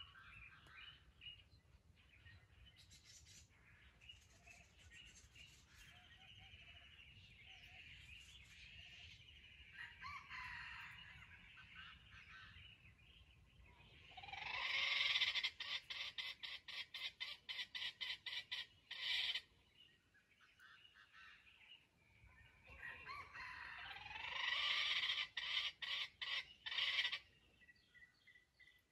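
Junglefowl (wild chicken) calling. Faint calls come first. Then, twice, a loud rising call breaks into a fast run of sharp repeated notes, about four a second, the first bout about 14 seconds in and the second about 23 seconds in.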